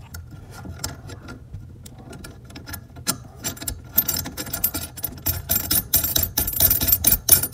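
Brass mounting nut being spun by hand up a single-lever faucet's threaded brass stud, with the loose metal washer on it clicking and jingling in quick, irregular ticks. The clicks grow denser and louder about halfway through.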